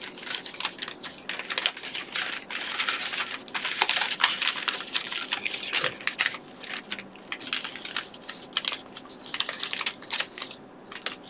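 Sheets of origami paper being folded, creased and handled: continuous crinkling and rustling with many quick sharp crackles.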